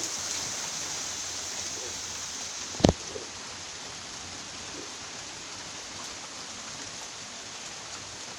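Steady rain falling, an even hiss. One sharp knock about three seconds in.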